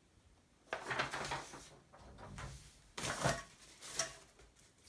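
Rustling and crackling of paper and plastic packaging being handled while unpacking a monitor box: a first burst about a second in, then louder crackles around three and four seconds.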